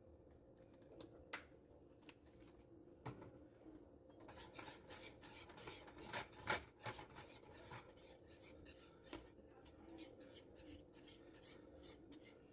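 Faint scraping and clicking of a utensil stirring in a cooking pot, with scattered strokes at first and many quick strokes from about four seconds in, over a faint steady hum.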